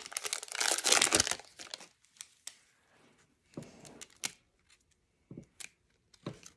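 Foil trading-card pack wrapper crinkling and tearing as the cards are pulled out of it, dense for about the first second and a half. After that only a few faint ticks and rustles as the stack of cards is handled.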